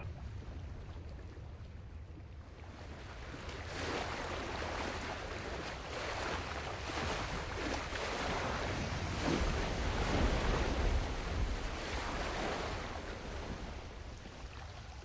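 Sea waves washing and rushing with wind, swelling a few seconds in and easing toward the end, over a steady low rumble.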